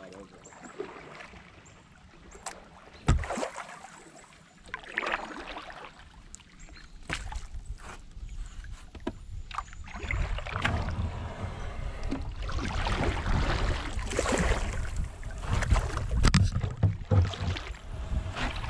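Kayak paddling on a river: the paddle swishes and splashes in the water, with a couple of sharp knocks about three seconds in. From about ten seconds in, a louder, rough rumbling noise sets in, with more swishes and splashes over it.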